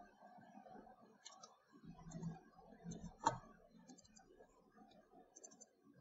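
Faint clicks of a computer mouse, a handful scattered through, the sharpest about three seconds in, over low room noise.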